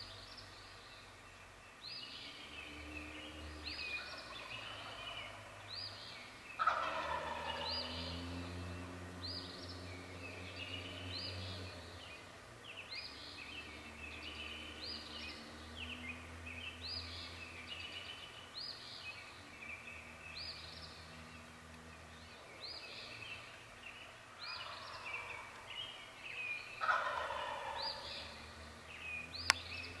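Male wild turkey gobbling, a loud rattling gobble about seven seconds in and another near the end, its breeding-season display call at dawn. A songbird repeats a short high chirp about once a second throughout, and there is one sharp click just before the end.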